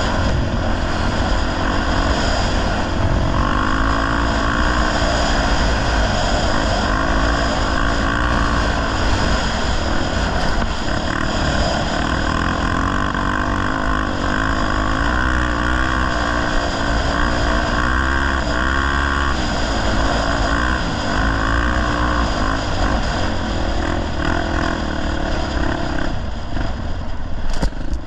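Honda XR250 Tornado single-cylinder four-stroke motorcycle engine running under way, its engine speed rising and falling again and again as the throttle is worked.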